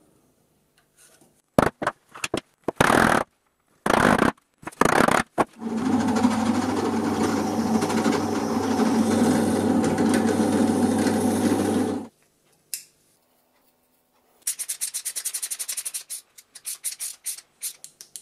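A drill boring a small hole into plywood runs steadily for about six seconds, starting and stopping abruptly, after a few short clatters. Near the end comes a fast run of clicks from a hand screwdriver being worked, then shorter bursts of clicking.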